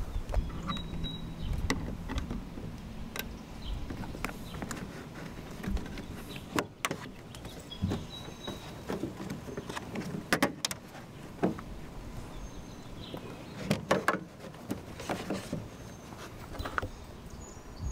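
Plastic trim clips and the felt trunk-lid liner of a Mercedes C300 being pried and pulled free: irregular clicks and knocks, a few sharper ones near the middle.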